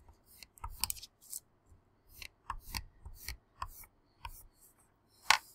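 Wax crayon scratching across paper in quick, short, irregular strokes as straight lines are drawn, with the paper being shifted on the table; a single sharp tap near the end.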